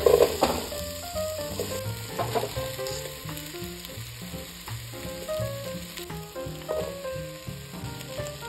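Sliced onions and diced potatoes sizzling as they pan-fry in a pot, with the loudest burst near the start as the potato cubes are tipped off a cutting board into the hot oil, and a few more bursts and stirring noises after. A gentle background melody plays throughout.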